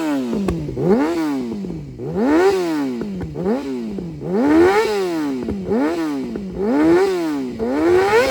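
A 2007 Yamaha R6's inline-four engine revved again and again, about once a second, each rev rising sharply in pitch and falling back.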